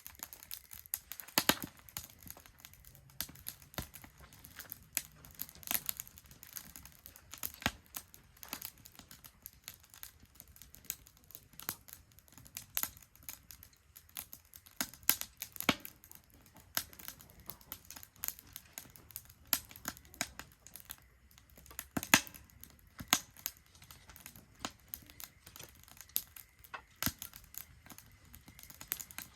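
Wood fire crackling in a Solo Stove Ranger fire pit: irregular sharp pops and snaps, a few a second, with a couple of louder cracks, over a faint hiss.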